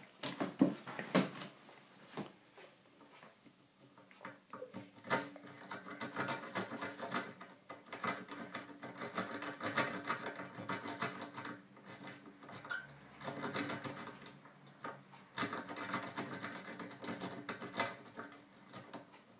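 A Bogota rake lock pick rattling and clicking rapidly over the pins inside a cylinder lock as it is raked in and out, in uneven bursts with short pauses.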